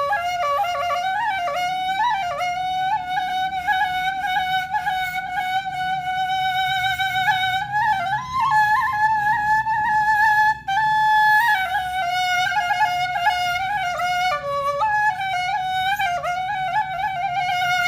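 Background music: a solo flute plays a slow melody of long held notes decorated with quick turns and slides, with a short break about halfway through.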